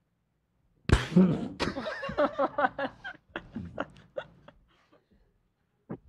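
A person bursts out laughing about a second in, a run of quick laughing pulses that trail off over about four seconds.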